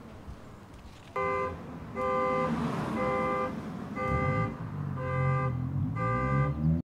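A car horn honking in even pulses about once a second, six times, the pattern of a car alarm going off, over a low traffic rumble.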